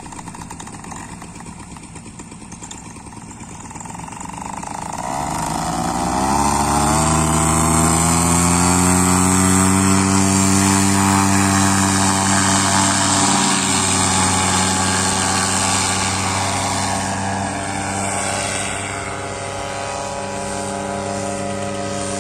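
Paramotor engine and propeller running low at first, then throttled up about four seconds in, its pitch rising over a few seconds to a steady full-power drone for the take-off run and climb. The engine note eases a little near the end.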